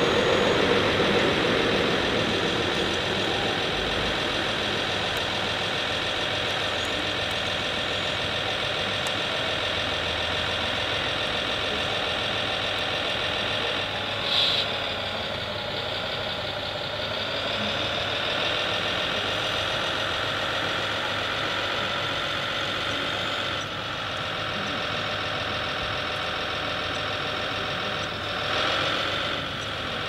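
Radio-controlled scale models of a Zettelmeier ZL 4001 wheel loader and a MAN tipper truck running, with a steady mechanical whine and engine-like drone. The pitch shifts about halfway through as the machines work, and there are brief louder bursts a little before halfway and again near the end.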